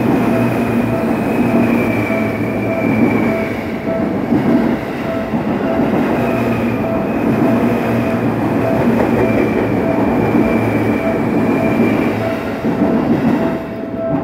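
Seibu Shinjuku Line commuter train passing through a level crossing, its wheels rumbling and clattering under a high drawn-out whine. Through it the crossing's warning bell rings steadily at about two strokes a second. The train noise eases off near the end.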